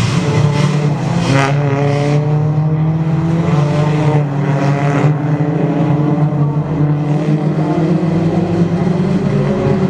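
Several Toyota Altis race cars driven hard through a corner, their engines revving, with notes rising and falling as they pass. In the second half one engine's note climbs slowly as it accelerates away. A steady low hum runs underneath.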